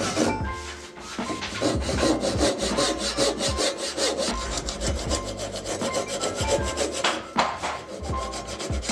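Handsaw cutting through hard maple in rapid, steady back-and-forth strokes, with the teeth rasping in the wood.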